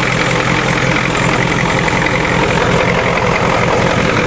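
Ford diesel truck engine idling steadily.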